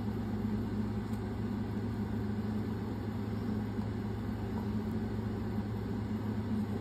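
Steady low hum of a running motor or appliance, even in level throughout.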